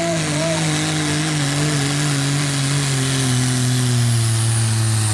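Dodge Ram's Cummins turbo-diesel engine running hard under load as the pickup drags a pulling sled. Its note falls steadily as the engine lugs down, with a high turbo whine above it that falls along with it.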